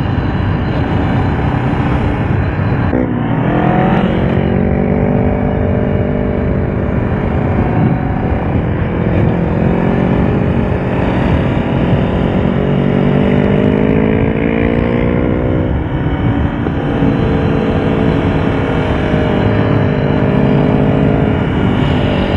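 Honda CBR500R's parallel-twin engine running under way, its pitch rising and falling through the bends, over steady wind noise on the microphone. The engine note dips and climbs again about three seconds in, and drops suddenly near sixteen seconds.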